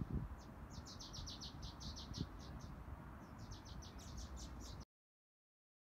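A small bird calling in quick runs of high, evenly spaced chirps, about seven a second, over a low outdoor rumble. The sound cuts off to silence about five seconds in.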